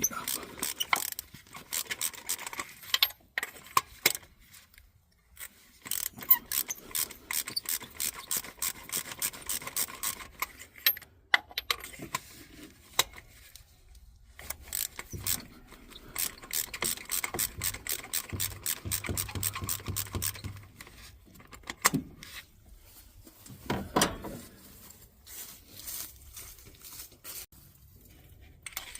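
Socket ratchet clicking in long runs of rapid clicks, with short pauses between, as a spark plug is unscrewed from the four-cylinder engine after being broken loose.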